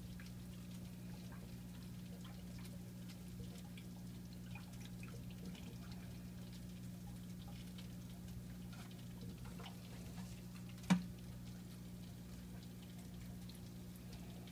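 Small drips and trickles of water at the surface of a goldfish tank over a steady low hum, with faint scattered ticks and one sharp click about eleven seconds in.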